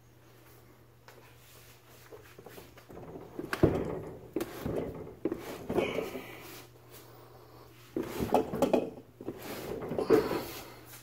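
Bumps, knocks and scraping in three clusters, the sharpest knock about three and a half seconds in, over a low steady hum.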